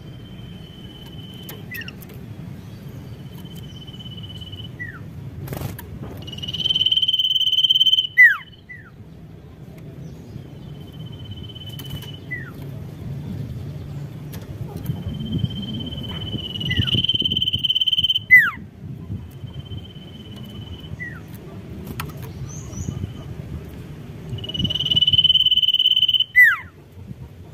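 A caged sirtu songbird singing: repeated high, steady whistled notes, some held for about two seconds and louder, often followed by short downward-sliding notes.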